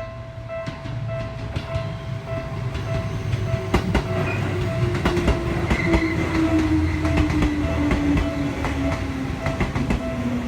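Japanese level-crossing warning bell dinging at about two strokes a second while an electric train passes through the crossing. The train's motor whine slowly falls in pitch over rumbling wheels that click across the rail joints.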